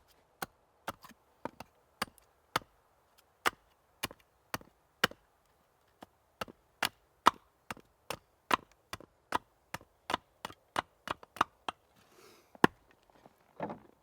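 Hand tool striking wood over and over, about two sharp blows a second in uneven runs, as oak shingles are worked with period hand tools. A short scraping rustle follows near the end.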